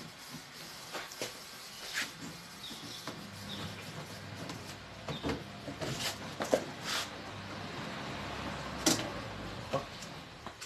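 Screwdriver working at the screws of a plastic washing-machine control panel: scattered sharp clicks and knocks of metal tool on plastic, about ten in all, at irregular intervals.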